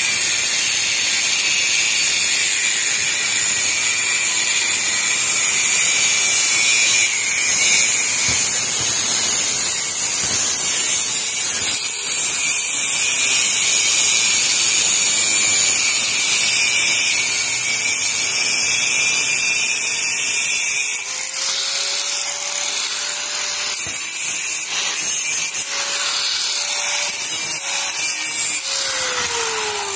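Handheld angle grinder with an abrasive cut-off disc cutting stainless steel railing tube, a loud harsh grinding hiss. After about two-thirds of the way the cutting turns intermittent and the motor's steady whine shows through. Near the end the grinder is switched off and its whine falls in pitch as the disc spins down.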